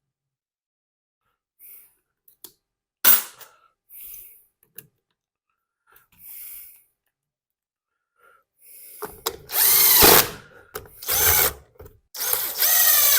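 Electric drill/driver running in three short bursts near the end, driving screws into the blower's housing, its motor pitch rising and falling as each screw runs in. Before that, a few light clicks and a sharp knock of parts being handled.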